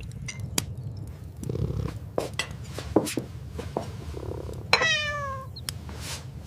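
A cat meows once, a single call falling in pitch, about five seconds in, over scattered small clicks and knocks.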